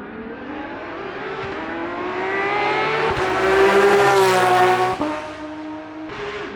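Hillclimb race car's engine accelerating hard, its pitch and loudness climbing to a peak about four seconds in. A sudden drop in pitch near five seconds marks an upshift, then the sound fades.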